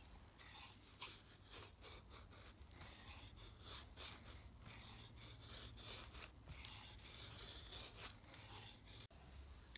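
A knife blade carving a stick of wood, peeling off long curled shavings: a quick run of short scraping strokes, two or three a second, fairly faint, stopping abruptly near the end.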